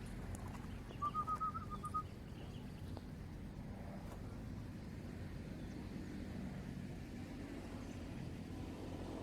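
A small bird gives a quick run of about seven short, high chirps about a second in, over a steady low rumble.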